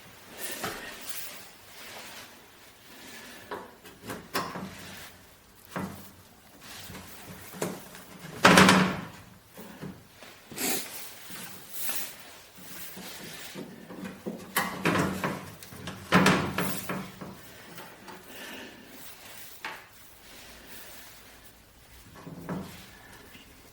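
Irregular knocks, clunks and short scrapes of tools and wooden parts being handled while a new handle is bolted onto a saw. The loudest scrape-and-clunk comes about eight and a half seconds in.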